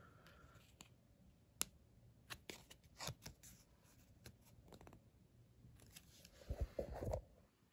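Faint handling noises: a cardboard hang tag and plush fur rustled and flicked by fingers, with scattered light clicks. Near the end, a few low thumps as a finger presses the activation button in the toy dog's paw.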